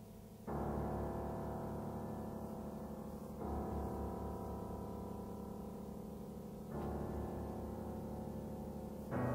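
Solo piano playing slow, sustained chords: four chords struck about three seconds apart, each left to ring and slowly fade.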